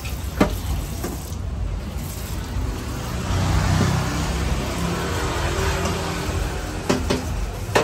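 A motor vehicle's engine running past on the street, loudest about three to four seconds in. A few sharp clanks of a metal spatula on the wok come near the start and again near the end.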